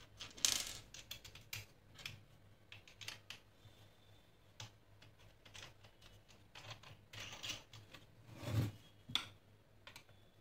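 Hands working a wooden embroidery stand and its metal bolts: scattered light clicks and knocks of wood and metal hardware, with a few brief rubbing swishes.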